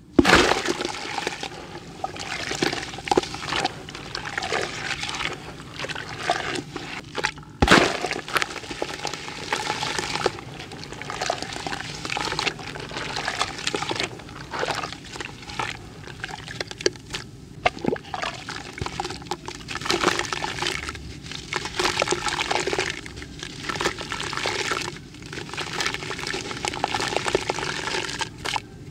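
Hands dipping and crushing a crunchy, crumbly grey block in a bucket of water: a steady mix of sloshing, splashing and gritty crumbling, with grains and powder pouring into the water. A sharp splash comes just after the start and another about eight seconds in.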